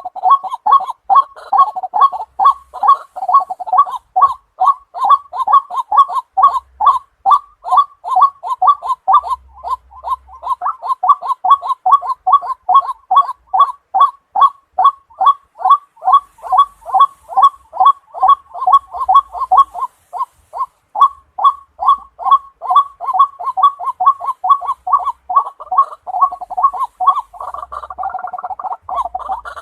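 White-breasted waterhen calling: a long, unbroken series of short notes repeated about three times a second. Near the end the notes run together into a denser jumble.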